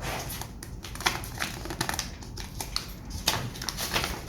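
Packaging being handled and opened: irregular sharp clicks, taps and short rustles.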